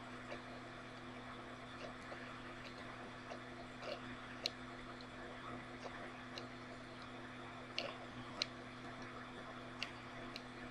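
Steady low electrical hum and hiss of room tone, broken by a handful of short, sharp clicks.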